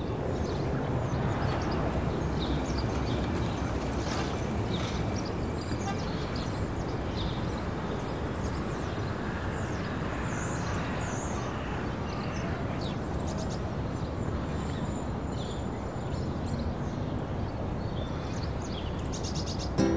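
Outdoor city ambience: a steady background of distant traffic noise with small birds chirping now and then.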